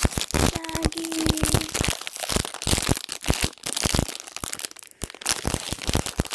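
Foil packaging wrapper crinkling and crackling in the hands, squeezed and pulled at in an effort to tear it open, with a dense run of sharp crackles.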